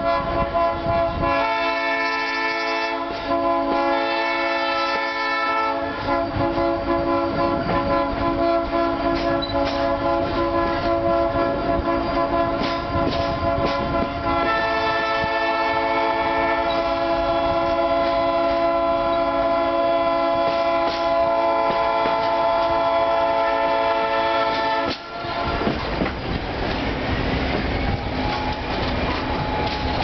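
Locomotive horn (the train's 'whistle') played musically by the engineer: a long run of held multi-note chords that change pitch pattern every few seconds, like a tune. It stops abruptly about 25 s in, leaving the clickety-clack of the train's wheels on the rails.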